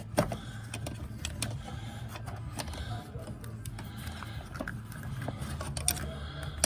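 Scattered small clicks and light metallic rattles of hands and tools working a throttle cable under a car's dashboard, over a low steady hum, with a sharper click about a fifth of a second in and again right at the end.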